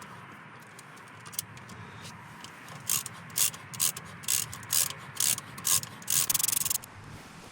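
Ratcheting tap handle clicking as a tap is turned into a bolt hole to clean its threads: a series of about eight short ratchet strokes, roughly two a second, then a quick run of rapid clicks.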